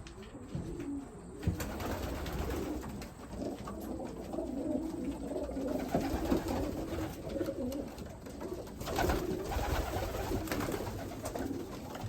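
A flock of young racing pigeons cooing together in a loft, many overlapping low calls with no pause, heard in a small enclosed room, with a single knock about a second and a half in.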